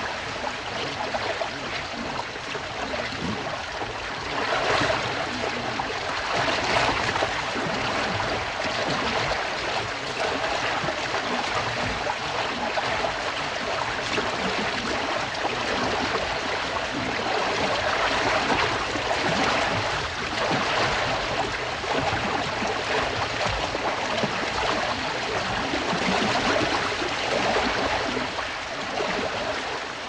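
Caribou swimming and wading across a river: continuous rushing, splashing water that swells in surges as the animals churn through.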